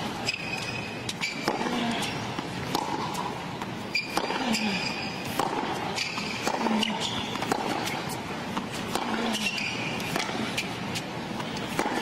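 Tennis rally on a hard court: racket strikes on the ball trading back and forth, a sharp hit every second or so, over a steady crowd background.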